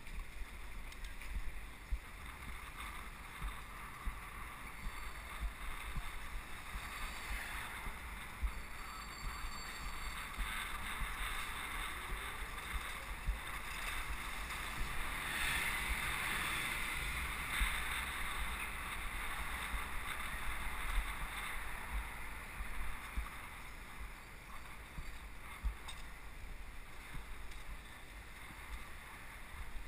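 Wind rushing over the microphone of a camera on a moving bicycle, with a low buffeting rumble over a steady hiss of tyre and street traffic noise that swells a little midway through.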